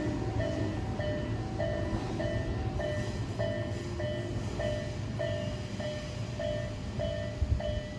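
Japanese railway crossing's electronic warning bell ringing 'kan-kan', two slightly different tones alternating at a little under two strokes a second. Under it runs the low rumble of a train on the line.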